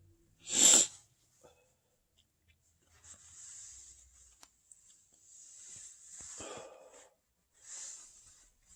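A person's short, loud mouth sound about half a second in, then three heavy breaths, one around the middle and the others near the end.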